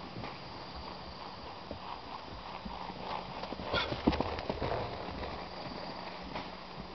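Ridden horse's hoofbeats on grass as it moves past, loudest about four seconds in when it passes close.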